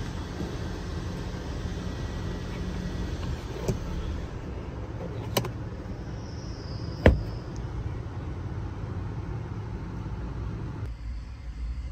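Plastic clicks and knocks from handling a Toyota Aqua's sun visor and rear-view mirror, three sharp ones, the loudest about seven seconds in, over a steady low hum of background noise that changes near the end.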